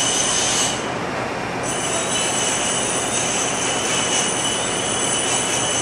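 High-pressure 350-bar air compressor running: a steady loud rush with several high, steady whining tones on top. The highest whine drops out for about a second near the start, then returns.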